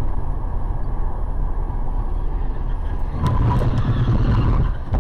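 Steady road and engine rumble of a car cruising on a freeway, picked up from inside the car, growing louder about three seconds in.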